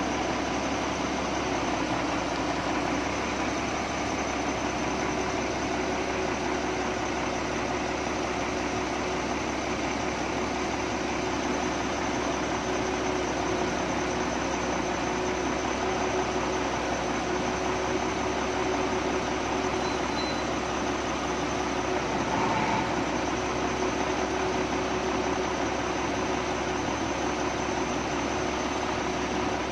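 Doosan wheel loader's diesel engine running steadily, with a constant hum.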